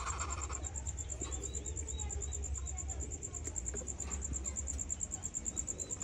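An insect's steady, fast-pulsing high trill, with a short run of faint small-bird chirps about two seconds in, over a low steady hum.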